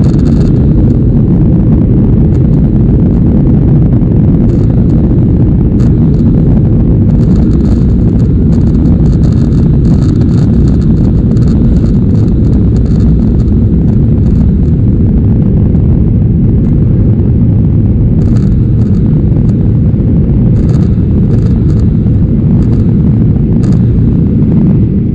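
Boeing 737-800's CFM56 jet engines at high power heard inside the cabin, as on the takeoff roll: a loud, steady low rumble with light rattling over it.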